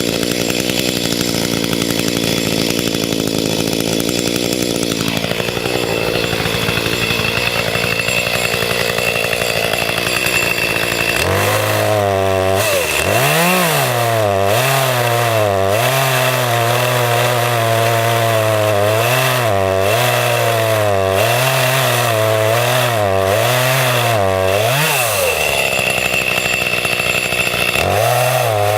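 Two-stroke chainsaw running hard while cutting into a dead pine trunk. It runs at an even pitch at first, then from about eleven seconds in its engine speed rises and falls repeatedly as the bar works through the wood, steadies briefly, and starts swinging again near the end.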